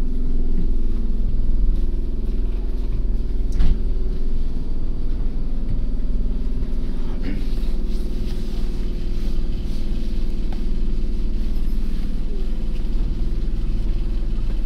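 Enoden 1000-series electric train running, heard from inside the passenger car: the steady hum of its nose-suspended (tsurikake) traction motors and gears, with a low rumble underneath. A single sharp knock comes about three and a half seconds in.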